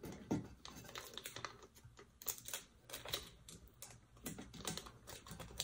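Faint, irregular clicks and crackles of a small piece of heat tape being handled and pressed down over sublimation paper wrapped on a tumbler.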